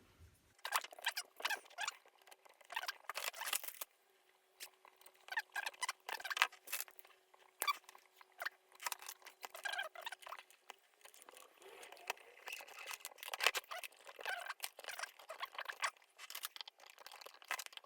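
Irregular small clicks, scratches and rustles of hands working a rubber timing belt into place on a DIY 3D printer's Y axis.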